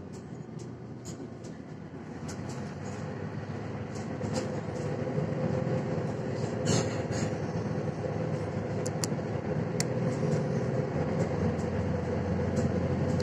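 Mercedes-Benz Citaro C1 Facelift city bus heard from inside the cabin as it accelerates: the diesel engine and drivetrain hum grow steadily louder over the first six seconds, then hold. Scattered clicks and rattles from the interior, with one sharper clack about seven seconds in.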